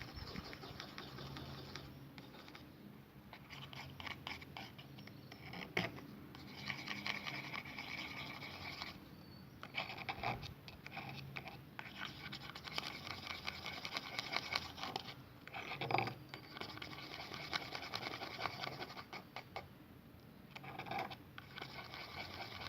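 A utensil scratching and scraping in a small container while slime ingredients are stirred together, in bouts with short pauses.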